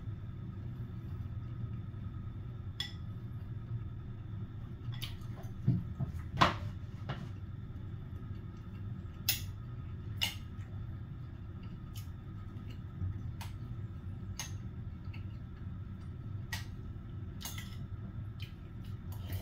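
Eating sounds: scattered short clinks and taps of utensils against a bowl of hotpot, the loudest a pair of knocks about six seconds in, over a steady low hum.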